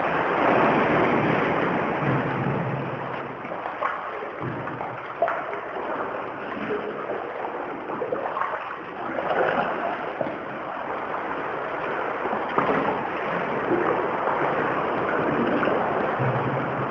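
Seawater sloshing and splashing around a kayak inside a sea cave, swelling and easing, with a few sharp knocks.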